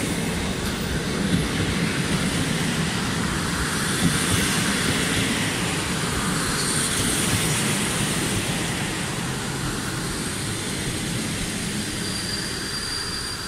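Passenger train hauled by an EP07 electric locomotive pulling into the station, its coaches rolling past with a steady rumble of wheels on rails that eases slightly toward the end.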